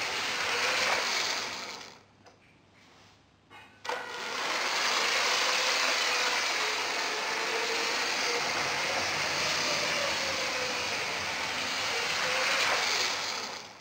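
Lego train running along plastic track, a steady motorised whirr with wheel rattle. It drops away about two seconds in and comes back with a click near four seconds.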